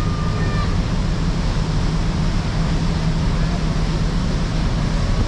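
Wind on the microphone and rushing sea water aboard a large ferry under way, over a steady low hum from the ship.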